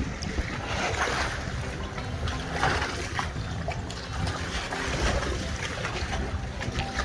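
Canoe paddle strokes splashing in the sea water, one every second or two, over wind rumbling on the microphone.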